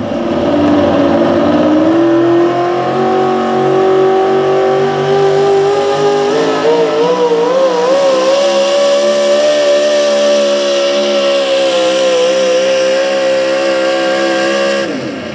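Supercharged engine of a 4WD pulling truck at full throttle as it drags a weight-transfer sled. Its pitch climbs in steps, wavers briefly about six seconds in, then holds high until the throttle is cut near the end and it drops away.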